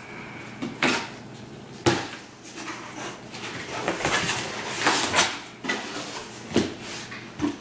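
Flaps of a large cardboard box being pulled open and folded back: cardboard scraping and rustling, with several sharp knocks.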